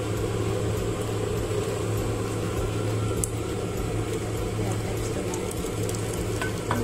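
Soup being poured from a metal pot into a ceramic bowl: a steady liquid trickle over a constant low hum, with a couple of light clicks about three seconds in and near the end.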